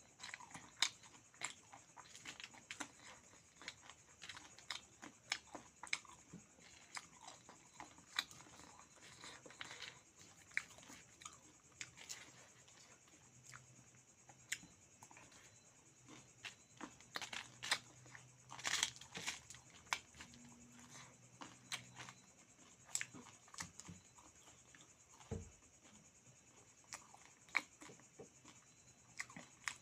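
A person chewing and crunching food close to the microphone, probably meat and crisp beaten rice (chiura): irregular sharp crunches and mouth smacks over a faint steady hiss.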